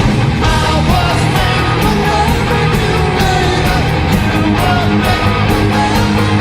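Loud rock song with a steady drumbeat and a singing voice.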